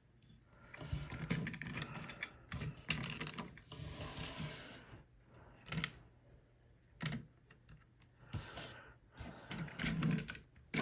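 Plastic action figure being handled and posed: scattered clicks and taps of hard plastic parts, with rubbing and shuffling between them.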